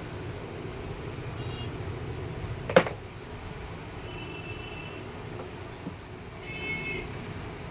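Sewing machine running with a steady low rumble, one sharp knock about three seconds in, and a brief high squeal near the end.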